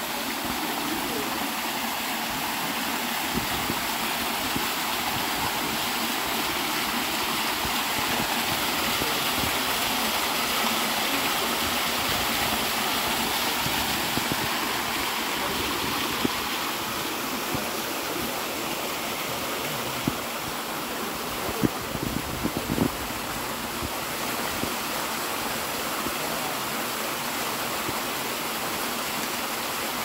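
Small waterfall pouring over sandstone ledges into a rock pool, a steady rush and splash of water. A few short sharp knocks come about twenty seconds in.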